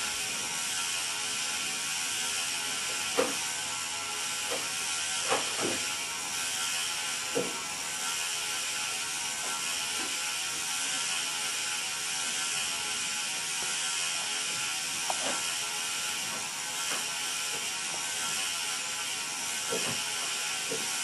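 Motorized flying ghost Halloween decoration running steadily, its small motor and gears making a constant mechanical whir, with a few short knocks now and then.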